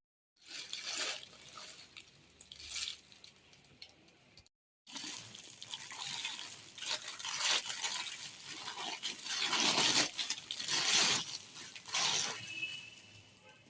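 Plastic packaging crinkling and rustling in a series of irregular swells as a parcel is unwrapped. The sound stops briefly at about four and a half seconds, then comes back louder.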